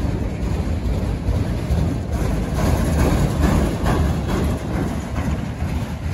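Autorack freight cars rolling past on steel rails: a steady low rumble with a run of rapid wheel clicks over the rail joints through the middle, as the last cars of the train go by.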